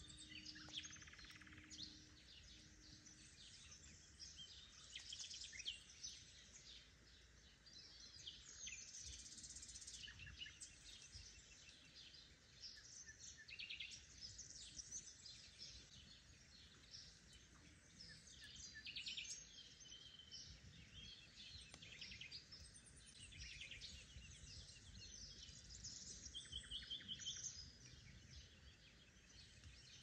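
Several songbirds singing and chirping faintly, in overlapping short trills and calls, over a low background hush.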